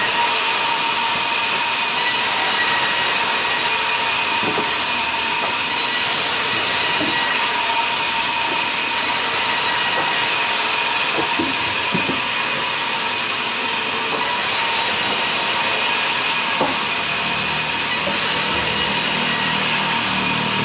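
Sawmill band saw running and ripping a log as it is fed through the blade: a steady whine over an even hiss, with a few faint knocks.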